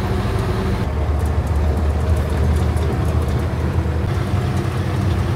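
PAZ bus engine running under way, a steady low hum with road noise; about a second in the hum deepens and gets stronger.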